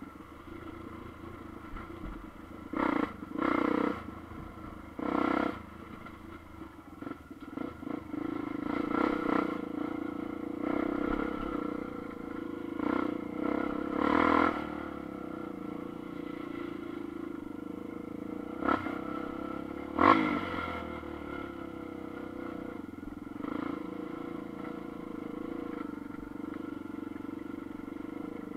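Single-cylinder 250 cc dual-sport motorcycle running at low speed on a rough dirt trail, heard from on the bike. A steady engine note is broken by several short, louder bursts, several of them between about three and fourteen seconds in and one about twenty seconds in.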